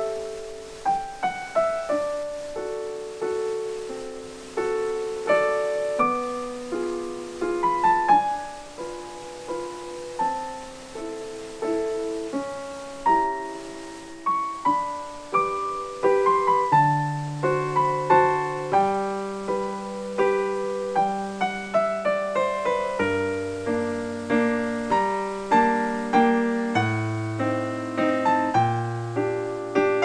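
Solo piano background music: a slow melody of single struck notes that ring and fade, with low bass notes joining about halfway through.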